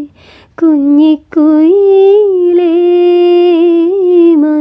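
A woman singing a Malayalam song solo, with no instruments heard: a short intake of breath at the start, then long held notes with a slight waver.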